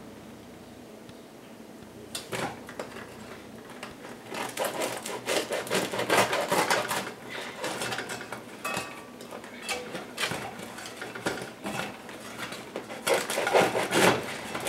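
A knife sawing through a hard-crusted, freshly baked sourdough loaf in a black pan, the blade scraping and knocking against the pan in quick, irregular strokes. It starts about two seconds in and is busiest near the end.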